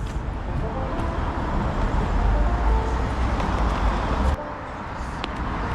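Street traffic noise: a steady hiss of passing road traffic with a low rumble that swells in the middle and cuts off suddenly about four seconds in, then carries on more quietly.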